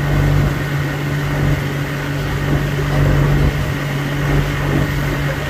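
Motorboat engine running at a steady pitch while the boat is under way, a constant drone with the rush of air and water around it.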